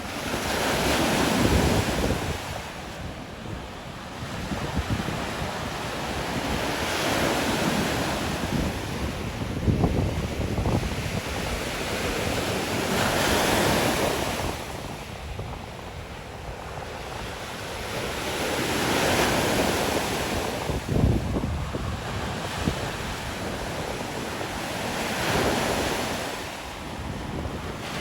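Lake Michigan waves breaking and washing up a sand beach, each surge swelling and fading about every six seconds. Wind buffets the microphone throughout, with a low rumble.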